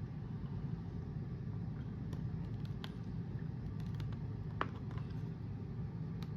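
A few faint, sharp clicks and taps of diecast toy cars' blister-card packaging being handled, over a steady low background hum.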